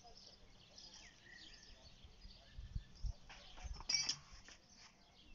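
Quiet garden ambience with birds chirping faintly. A few low thumps about two and a half to three seconds in, then a short sharp knock about four seconds in.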